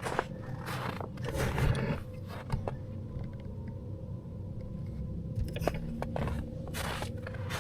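Footsteps crunching in snow: a few irregular steps in the first couple of seconds, a pause, then a few more near the end, over a steady low rumble.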